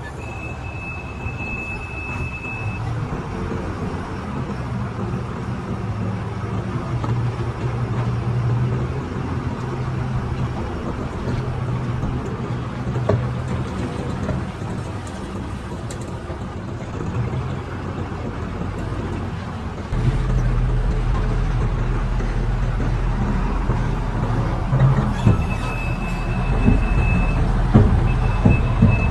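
Diesel engines of heavy construction machinery running steadily, with a high steady whine at the start and again near the end. About two-thirds of the way through a deeper, louder engine hum comes in, and a few knocks follow in the last seconds.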